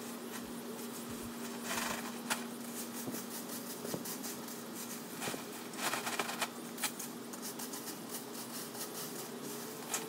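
Dry fallen leaves and debris rustling and scraping in short irregular bursts as they are swept with a broom and pushed into a plastic bag, over a faint steady hum.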